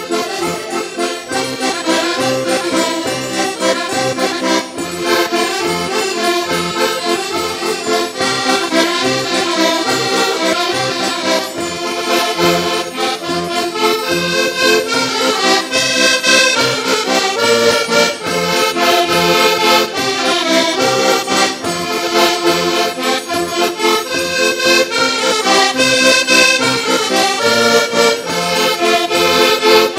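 Several Portuguese concertinas (diatonic button accordions) playing a lively folk tune together, over a steady bass drum beat.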